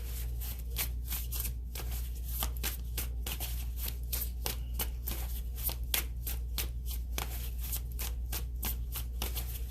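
A deck of tarot cards being shuffled by hand: a steady run of quick card snaps, several a second, over a low steady hum.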